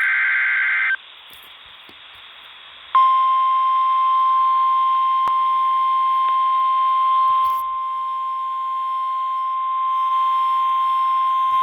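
Weather radio emergency alert: a burst of SAME digital header data tones lasting about a second, a short pause, then the single steady warning alarm tone starting about three seconds in and holding. The tone signals that a severe thunderstorm warning follows.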